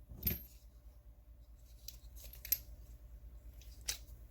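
A socket set being handled: a few faint, sharp clicks and rustles of metal sockets and their packaging, with the loudest clicks about a third of a second in, in the middle and near the end.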